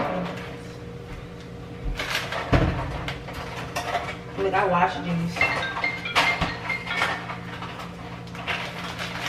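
Low talk with kitchen handling sounds: a few short knocks and clinks of things being handled at the counter and fridge, over a steady low hum.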